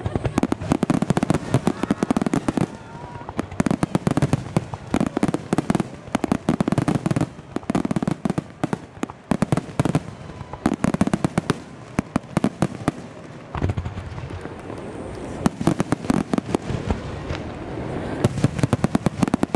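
Star mine fireworks: a rapid barrage of aerial shells bursting one after another in dense volleys of bangs and crackles, easing off briefly about two-thirds through before picking up again.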